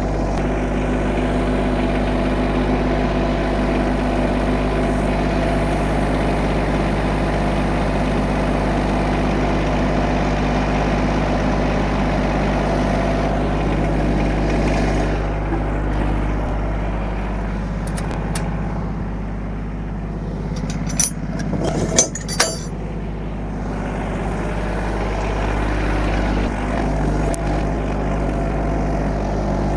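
LS tractor's engine running steadily. A few sharp knocks sound about 21 to 22 seconds in.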